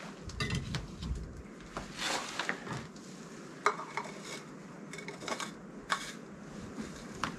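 Hot chocolate being stirred in a stainless steel insulated tumbler: a spoon scraping around inside the metal cup, with several sharp clinks against its wall.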